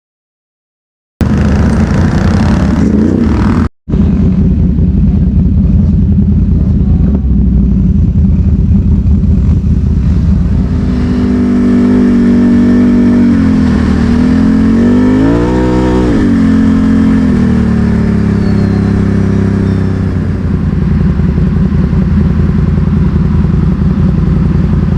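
ATV engine running steadily while riding, rising in revs and settling back down about two-thirds of the way through. The sound opens with about a second of silence and cuts out briefly about four seconds in.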